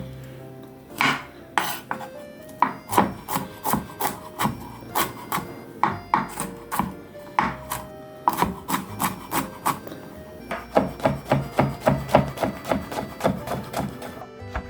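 Kitchen knife cutting vegetables on a wooden cutting board: separate strokes a few a second, turning into a faster, even chop about ten seconds in.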